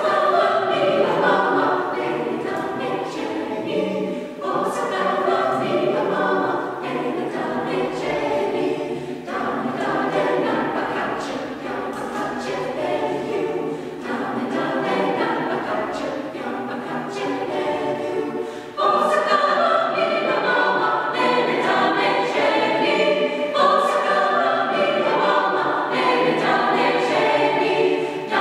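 Mixed SATB choir singing a cappella, growing louder about two-thirds of the way through.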